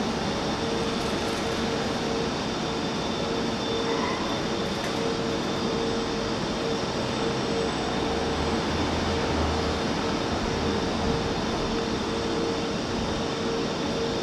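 Steady railway-station ambience: an even background rush with a constant mid-pitched hum and a slight low rumble about two-thirds of the way through, with no train passing yet.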